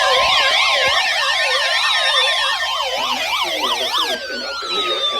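Several sirens sounding at once: overlapping quick up-and-down pitch sweeps, with a few longer tones sliding slowly down in pitch.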